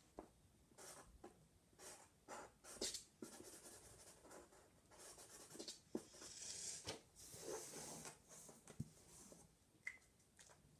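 Faint scratching of a Sharpie felt-tip marker on paper in short, irregular strokes as a patch of the drawing is coloured in.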